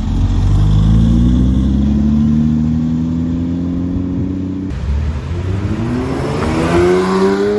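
Porsche engine accelerating at full throttle, its pitch climbing steadily through a long pull. About two-thirds of the way in it breaks off suddenly, and a second acceleration starts, its pitch rising faster toward the end.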